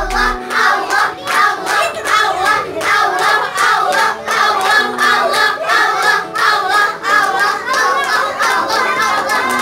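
A group of children's excited voices overlapping, shouting and chanting, with frequent hand claps.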